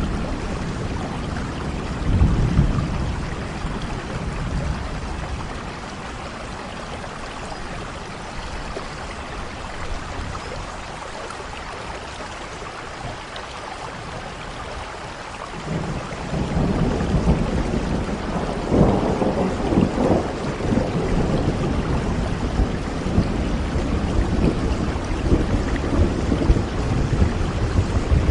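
Steady rain falling while thunder rumbles: a short rumble a couple of seconds in, then, after a calmer stretch, a long rolling peal of thunder from about halfway through that peaks a few seconds later and keeps rumbling to the end.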